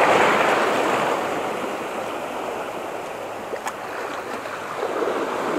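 Small waves washing over and draining off shoreline rocks: a surge of surf at the start that fades away, with a single light click a little past the middle.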